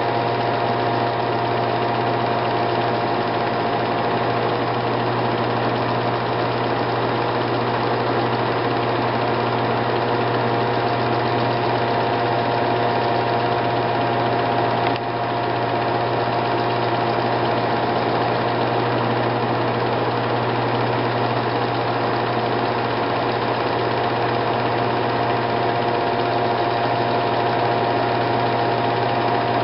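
A steady mechanical hum and whir with several fixed tones, unchanging throughout, broken by a single click about halfway through.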